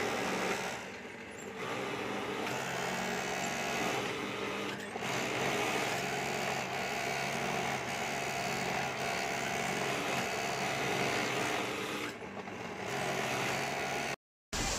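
Industrial overlock sewing machine (serger) running in spurts as fabric pieces are fed through, easing off briefly a couple of times, over the steady hum of other sewing machines.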